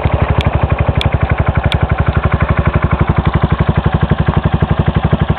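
Gilera Runner VXR200 scooter's single-cylinder four-stroke engine idling loudly through a Serdarević aftermarket exhaust, in a steady, even beat of exhaust pulses.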